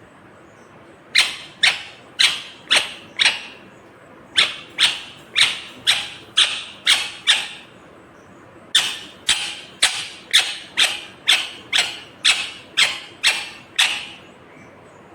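Rose-ringed (Indian ringneck) parakeet giving sharp, repeated screeching calls, about two a second, in three runs separated by short pauses.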